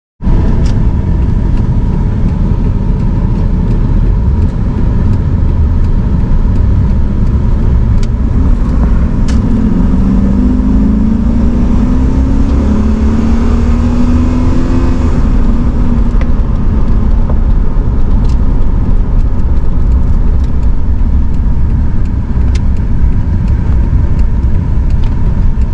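Chevy Silverado 2500's 6.0-litre LQ4 V8, stock intake and exhaust, on a full-throttle acceleration run. Over steady road and engine rumble, the engine note climbs for about five seconds from about ten seconds in, then drops as the throttle is let off.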